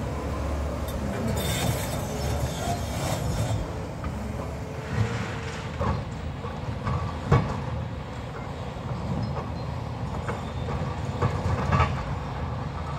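Demolition machinery at work: a steady engine rumble with scattered metal clanks and knocks, the loudest a sharp knock about seven seconds in.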